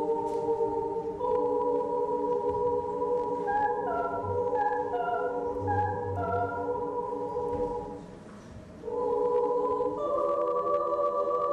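Children's choir singing sustained chords in several parts, with short, detached higher notes over them in the middle; the sound dips briefly about eight seconds in before a new, higher chord enters.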